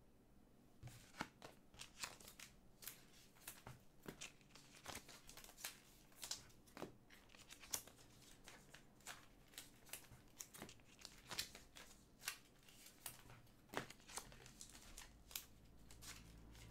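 Panini Prizm trading cards being handled and flipped through by hand: faint, irregular clicks and short slides, one or two a second, starting about a second in.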